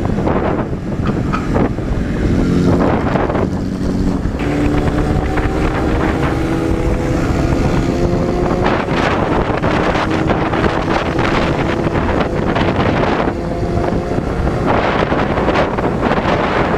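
Motorcycle engine running under way, its pitch climbing slowly over several seconds as the bike speeds up in gear, with heavy wind buffeting on the microphone.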